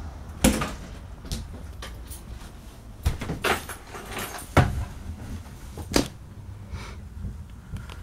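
Several sharp, irregular knocks and clunks inside a trailer's interior, the loudest about half a second in, around three to four and a half seconds in, and at six seconds, over a low steady rumble.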